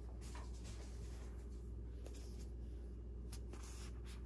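Faint rustles and soft handling noises of yarn skeins with paper labels being set down and picked up, a few scattered brushes, over a steady low hum.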